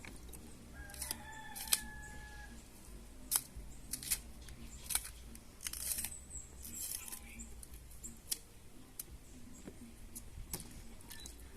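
A knife peeling green bananas: short, sharp clicks and scrapes of the blade through the peel. A rooster crows in the background about a second in, and again faintly later.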